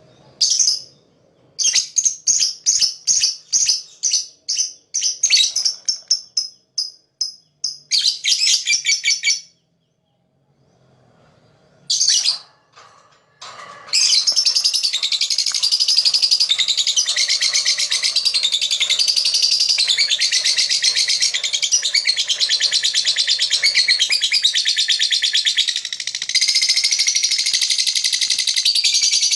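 Lovebird calling: a run of sharp, high chirps, a few a second, ending in a quick trill, then after a pause a long, unbroken, rapid chattering trill (the 'ngekek') from about halfway on.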